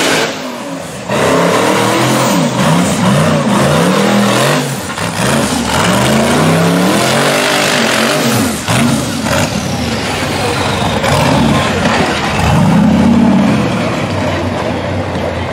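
Rock bouncer buggy's engine revving hard in a string of bursts, its pitch swinging up and down over and over as it climbs a steep rocky hill.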